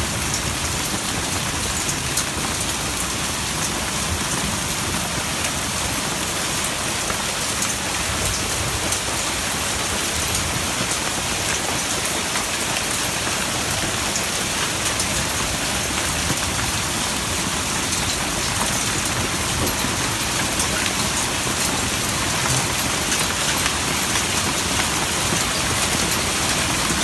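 Heavy rain mixed with hail pouring down steadily: a dense hiss peppered with sharp ticks of hailstones striking the ground and hard surfaces.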